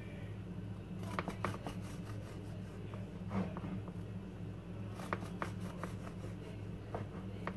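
Knife slicing through a loaf of banana bread: short crackly sawing strokes through the crust in a few separate bursts, the blade meeting the plastic cutting board. A steady low hum runs underneath.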